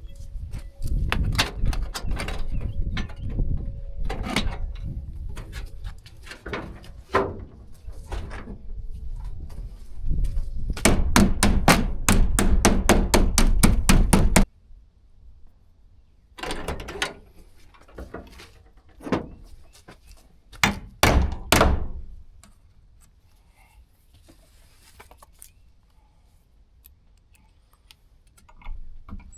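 Knocking and clattering from work on a wooden barn door, with a fast, even run of sharp strikes about eleven seconds in that stops abruptly. Then come a few separate thunks, and the rest is fairly quiet.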